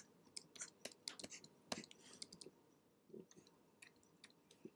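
Faint, irregular clicking of computer keys, a few clicks a second, against near silence.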